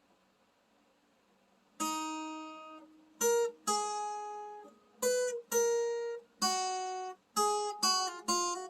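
Acoustic guitar strummed one chord at a time, starting about two seconds in, with short pauses between strums and the chord changing from strum to strum, some strums cut short.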